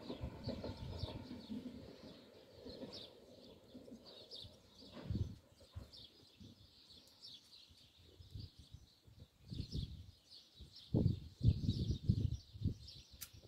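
Small birds chirping repeatedly, while the hum of a departing train fades away over the first two or three seconds. Several low bumps near the end are the loudest sounds.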